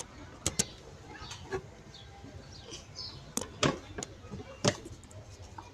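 Irregular knocks and bumps, about half a dozen sharp ones at uneven intervals with light rustling between them, as of someone tumbling down a flight of stairs.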